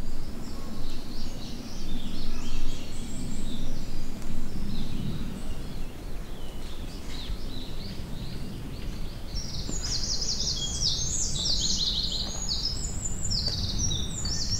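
Several forest birds chirping and singing in short, quick high notes, more of them from about ten seconds in, over a steady low rumble.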